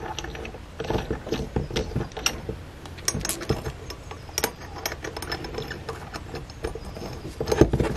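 Steel bolts and nuts clicking and rattling against each other and the steel roller mount as they are handled and threaded in by hand: a run of small, irregular metallic clicks.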